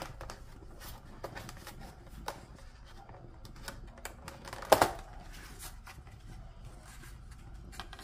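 Clear plastic clamshell food container being handled and pried open: crinkling and clicking of the thin plastic, with one loud snap about halfway through.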